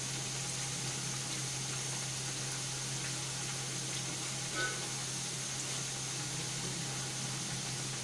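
Round potato slices deep-frying in hot oil in a kadhai: a steady frying hiss over a low steady hum.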